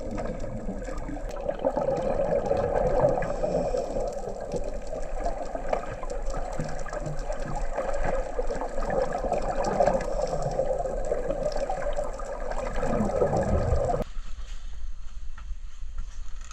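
Muffled underwater water noise with bubbling and gurgling, as picked up by a camera underwater. It cuts off suddenly about fourteen seconds in, giving way to much quieter open-air sound.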